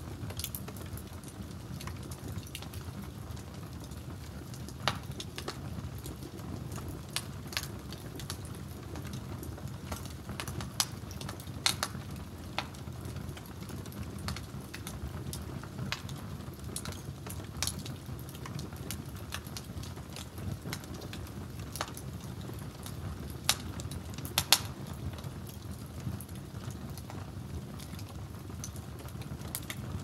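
Wood fire crackling, with irregular sharp pops and snaps, a few louder than the rest, over a steady low bubbling of a lidded pot boiling on the fire.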